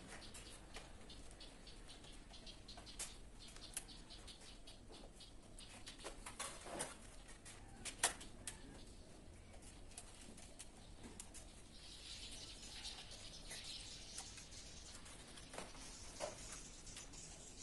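Faint, scattered clicks and taps of a screwdriver and plastic breaker parts as miniature circuit breakers in a distribution board are worked on. The sharpest click comes about eight seconds in, and a soft high rustle follows a few seconds later.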